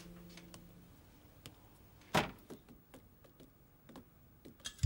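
Quiet footsteps on a hard tiled floor, with one louder knock about two seconds in, like a door.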